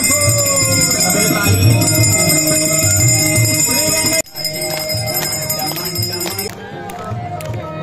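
Devotional aarti music with a steady drum beat and a melodic line, over continuous ringing of bells. The sound breaks off abruptly about four seconds in and picks up again, and the bell ringing stops about two seconds later.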